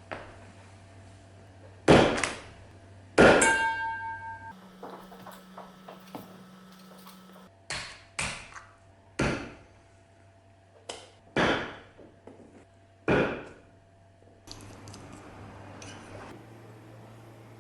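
Restored Soviet multi-tool axe being tried out: a series of sharp single strikes a second or more apart, the second one followed by a ringing metallic tone.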